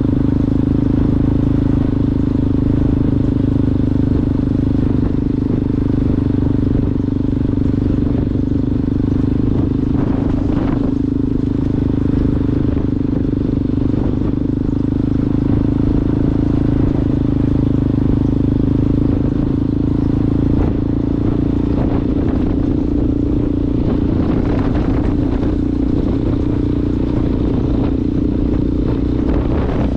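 Yamaha Ténéré motorcycle engine running through a Coyote aftermarket exhaust at a fairly steady speed while riding off-road. A few short knocks and rattles sound over it, around ten seconds in and in the second half.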